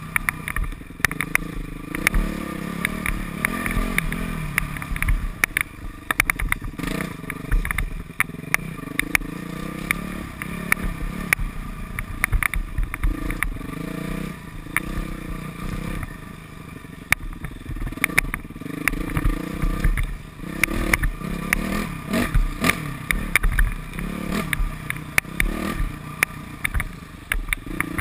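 Modified Yamaha YZ426F four-stroke single-cylinder dirt bike engine revving up and down repeatedly as it is ridden through an enduro section, with frequent clattering clicks and knocks.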